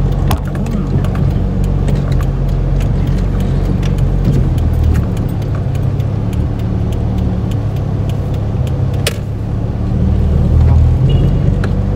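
Car driving along a road, heard from inside the cabin: a steady engine and road hum with small rattles and clicks, one sharper click about nine seconds in, and a swell in loudness near the end.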